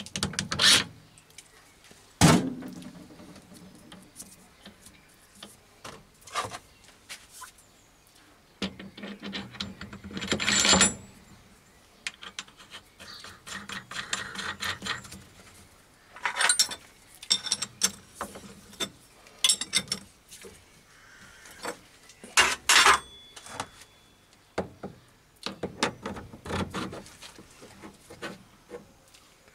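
Steel lathe tooling being handled and fitted: irregular metal-on-metal clanks, clicks and short scrapes as the toolpost is taken apart and the toolpost drill body is slid into its holder, with two sharp knocks, about two seconds in and past the twenty-second mark.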